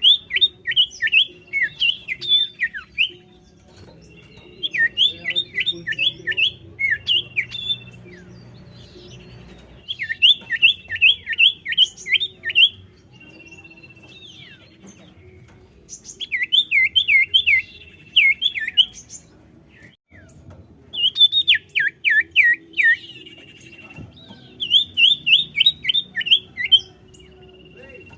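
Common iora (cipoh) singing its 'sirtu' song: bursts of about seven quick, high, sweeping notes, each burst lasting a few seconds. The bursts repeat every five or six seconds, some opening with a short steady whistle.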